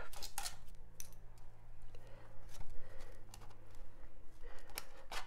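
Styrodur foam being trimmed with a handheld hot-wire cutter and handled, giving soft scratching and a few sharp clicks over a steady low hum.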